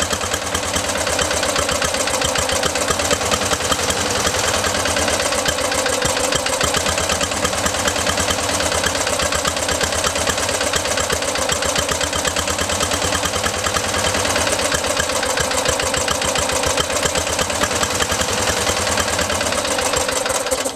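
Lawn mower's small single-cylinder engine running on diesel vapour made by an ultrasonic transducer, with a steady rapid firing beat. It runs rough, which the owner puts down to the transducer not making enough vapour.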